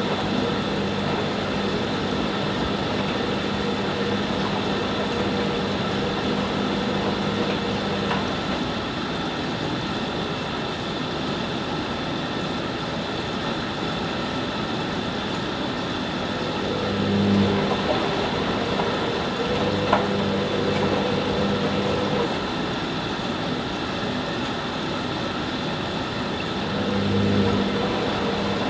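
Hoover Nextra HNL662 washing machine running, its drum motor humming in stretches of several seconds with pauses in between, over a steady whir. There is a single sharp click about twenty seconds in.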